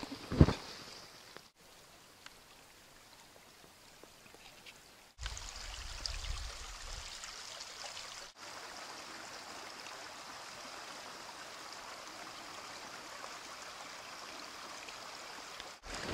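Brook water running among snow banks, a steady rushing hiss whose level jumps up and down abruptly a few times. A crunching step in snow comes right at the start, and a low rumble about five to seven seconds in.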